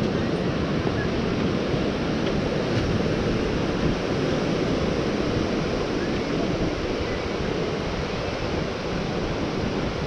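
Ocean surf washing onto the beach, a steady rushing noise, with wind buffeting the microphone.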